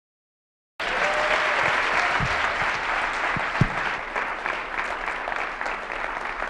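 An audience applauding, starting abruptly about a second in and slowly dying down, with a couple of low thumps partway through.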